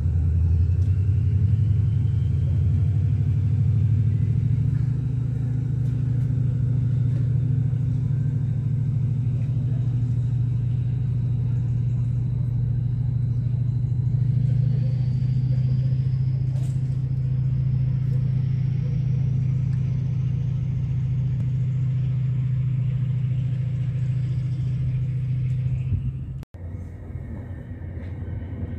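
Class 68 diesel locomotive working a passenger train, its engine giving a loud, steady deep rumble, with a faint high whine rising slowly in pitch. The rumble drops away suddenly near the end.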